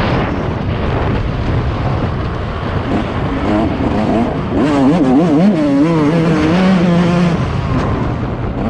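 Two-stroke engine of a Yamaha YZ 144 motocross bike revving up and down as it is ridden, its note rising and falling several times, with a heavy rush of wind on the helmet camera's microphone.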